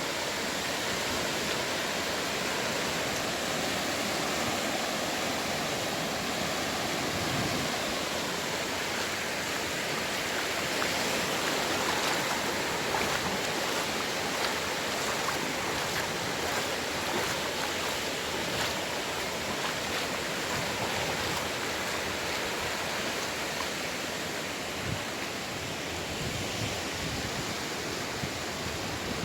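Sea waves washing in, a steady hiss of surf that swells slightly about halfway through.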